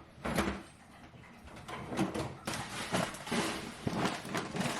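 Grocery packaging being handled: irregular rustling and crinkling of plastic wrappers, busier from about two seconds in.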